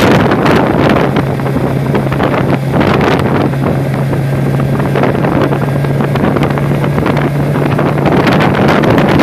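Hurricane-force wind gusting and buffeting the microphone in loud, rushing swells, over a steady low hum.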